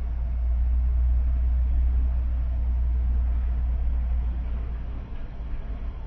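Car driving, heard from inside its cabin: a steady, loud low rumble of road and engine noise.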